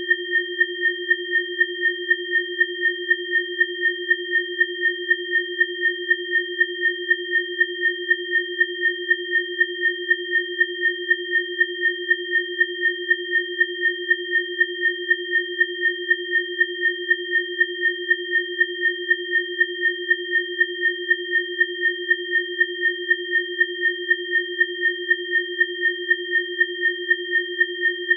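Synthesized bioresonance frequency tones: three steady electronic sine tones, one low and two high, sounding together. They pulse evenly about three times a second.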